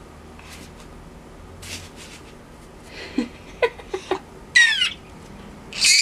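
A baby squealing with excitement: a few short squeaks about three seconds in, then a high squeal that falls in pitch, and a loud shriek starting near the end.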